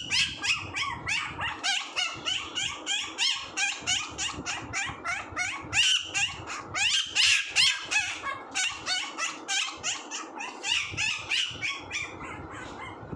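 Pomeranian puppy crying in rapid, high-pitched yips, about three or four a second, dying down near the end.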